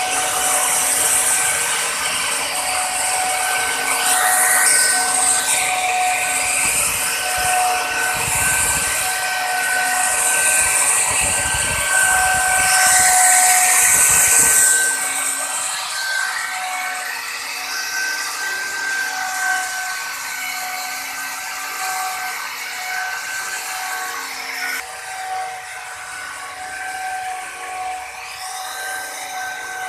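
Handheld electric plunge router running at speed, its bit cutting a decorative pattern into a wooden panel: a steady high motor whine over the hiss of the cut. The cutting hiss eases about halfway through while the motor whine carries on.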